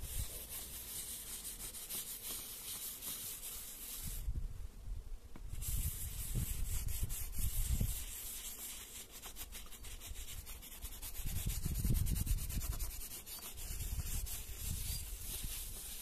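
Leather saddle being rubbed down with baby oil, a steady scratchy hiss of quick wiping strokes with dull bumps underneath, pausing briefly about four seconds in.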